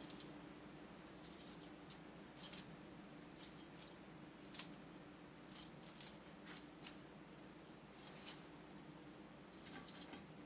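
Faint, scattered light clicks and rustles of cooked chicken wings being handled and set down onto a lettuce-lined serving platter, over a faint steady hum.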